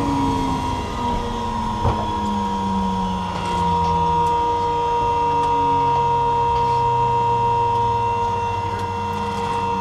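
de Havilland DHC-3 Otter seaplane's engine winding down after shutdown, its pitch falling slowly and steadily under a steady high whine, with a single click about two seconds in.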